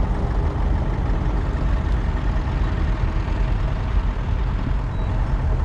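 1953 Ferguson TEF20's 2.1-litre four-cylinder diesel engine running steadily as the tractor drives along.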